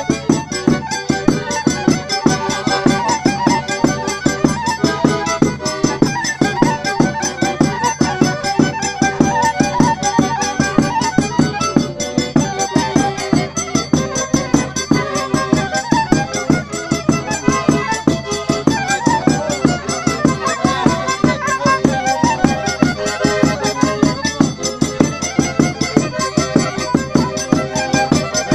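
Horn violin (a Stroh-type violin with a metal trumpet horn) playing a traditional folk tune with a red piano accordion, over a bass drum keeping a steady, even beat.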